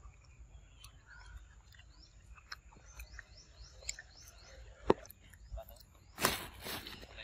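Quiet forest ambience of small birds chirping with short, falling notes, with a few soft clicks and one sharp click about five seconds in. Near the end comes a louder burst of rustling.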